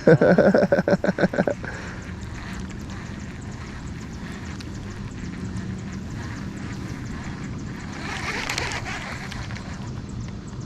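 A man laughing in quick pulses for a second or so, then a boat motor running steadily with a low hum.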